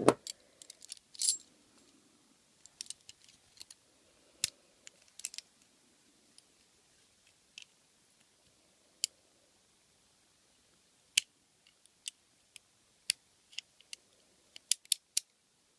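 Scattered sharp metallic clicks and light jingles of handcuffs and their chain being handled on the wrists, some single and some in quick little clusters.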